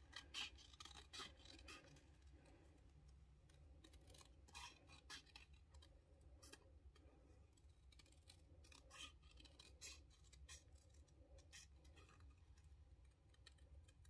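Scissors snipping around a stamped piece of white cardstock: a string of faint, irregular snips.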